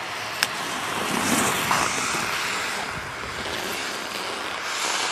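Rushing hiss of wind on the microphone, with ski edges scraping across hard-packed snow as a racer carves past the gates; the scraping swells about a second in and again near the end. A single sharp click about half a second in.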